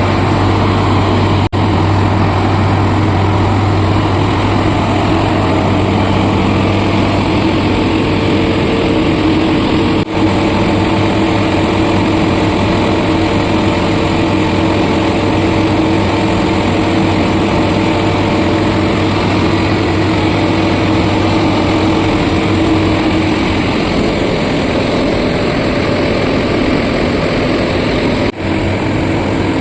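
Heavy diesel engines of an excavator and a Hydra mobile crane running steadily, with a deep, constant hum.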